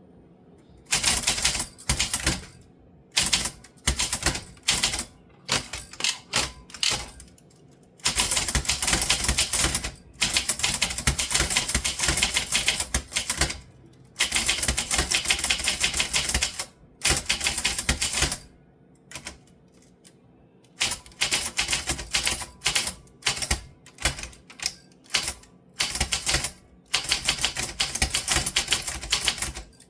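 Typewriter being typed fast, in long runs of rapid keystrokes broken by short pauses.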